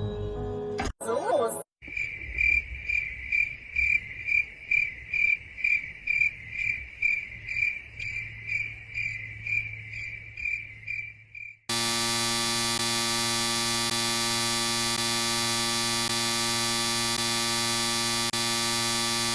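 Cricket-like chirping at about three chirps a second, which stops about twelve seconds in and is cut off by a loud, steady buzzing tone with many overtones that holds to the end.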